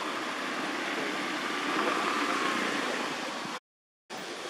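Steady rushing outdoor background noise, cut by a sudden half-second gap of complete silence about three and a half seconds in.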